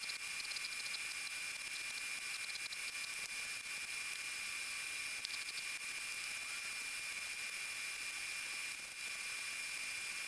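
Steady hiss with a thin high whine, with faint scratchy rasps here and there as small walnut and maple cubes are rubbed by hand against sandpaper on a sanding block to ease their corners.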